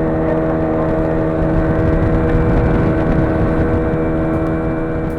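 Motor engine running at a steady speed, its even hum held at one pitch over the rushing noise of travel.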